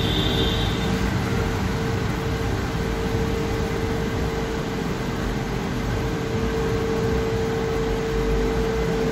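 Steady background hum and hiss with a constant mid-pitched tone, unchanging throughout; no distinct handling clicks from the wiring stand out.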